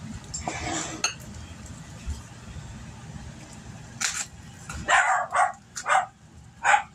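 A dog barking: about five short barks in the last three seconds.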